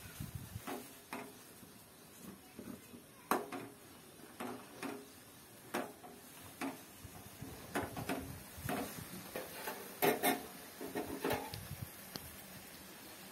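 A metal spoon clinking and scraping against an aluminium kadai while stirring noodles in water, in irregular taps about one or two a second. The taps are loudest about ten seconds in and stop shortly before the end.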